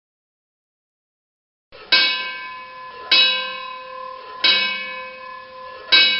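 Fire engine bell struck four times, starting about two seconds in, about one strike every second and a quarter to second and a half. Each strike rings on with a bright metallic tone that fades into the next.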